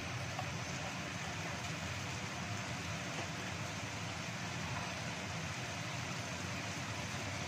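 Green bean, carrot and egg stir-fry sizzling in a wok with a steady hiss.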